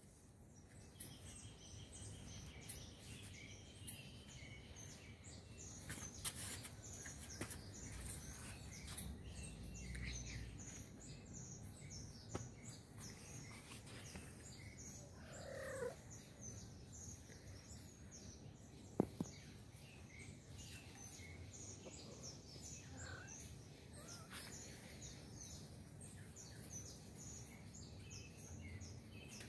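Small birds chirping over and over in the background, faint. About halfway through, a short call slides down in pitch, and a little later comes a single sharp click, the loudest sound.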